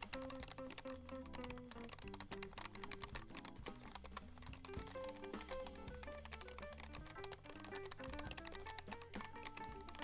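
Rapid, continuous typing on a Keychron K1 V4 low-profile mechanical keyboard, a dense run of light key clicks. Background music with a melody and bass plays under it.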